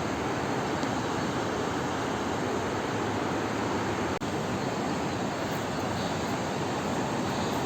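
Steady rushing of a fast mountain river, an even unbroken roar of water, with a brief dropout about four seconds in.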